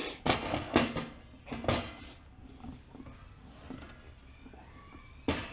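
A thick zebrawood board knocking and scraping against the table saw's table as it is handled and turned over. There is a quick run of sharp knocks in the first two seconds, then quieter rubbing, and one more knock near the end.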